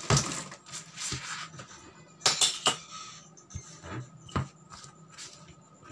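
Metal telescopic batons being handled on a desk: sharp metallic clacks and knocks, with a scraping, rubbing noise in the first second and a quick run of three clacks a little past two seconds in, then lighter taps.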